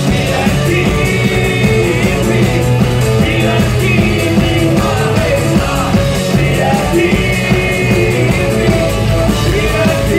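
Live band playing loud through a PA: electric bass and drum kit keeping a steady beat, with a lead vocalist singing into a microphone over it.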